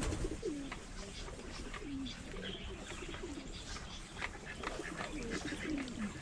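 Birds calling: a run of short, low notes that fall in pitch, roughly two a second, with faint scattered clicks and rustles.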